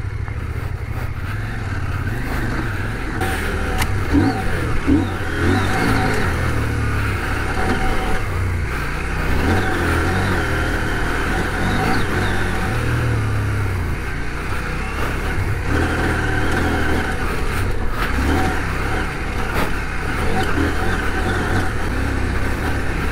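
CF Moto 800MT Touring's parallel-twin engine running steadily at low speed on a dirt track, with a couple of brief knocks over bumps.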